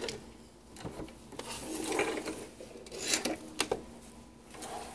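Cotton fabric rustling and sliding across the sewing machine bed as the sewn piece is pulled out from under the presser foot, with a few short sharp clicks from handling the machine.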